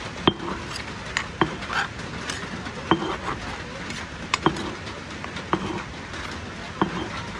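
Irregular sharp knocks and clinks of kitchen work with utensils, roughly one or two a second, over a steady hiss.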